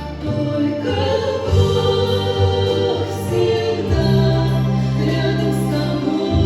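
Choir singing a Christian hymn over sustained organ accompaniment, the voices entering about a second in over the held organ notes.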